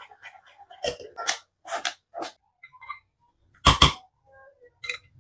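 Spoon scraping and tapping against a mesh strainer and glass bowl: a string of short, sharp clicks and knocks, with two louder knocks close together about three and a half seconds in.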